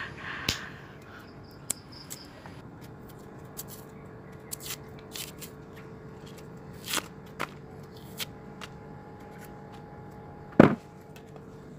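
Kitchen knife peeling and cutting cassava roots by hand: scattered short scrapes and clicks of the blade through the tough skin, with one sharp knock near the end.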